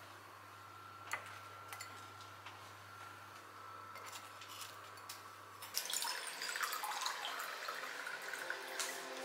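Faint light clicks of bamboo tongs setting toasted bread slices into a ceramic bowl over a low steady hum. About six seconds in, water is poured into a glass, splashing and fizzing, and this is the loudest part.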